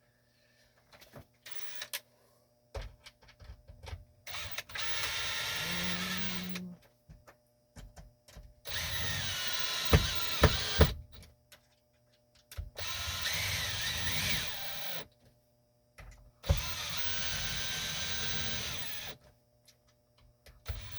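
Power drill running in four bursts of about two to three seconds each, with a steady motor whine, and a few sharp clicks in the middle of the second burst.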